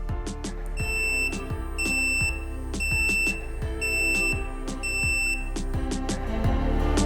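Electronic buzzer of a wireless remote-control receiver beeping five times, a high steady beep about half a second long roughly once a second, over background music with a steady beat.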